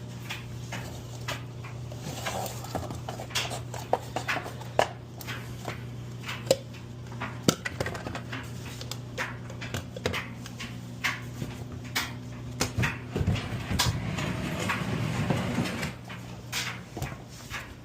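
Scattered clicks and knocks of metal panels, screws and hand tools being handled on a commercial washer's cabinet, over a steady low hum. A denser rough scraping and rustling stretch comes about 13 to 16 seconds in.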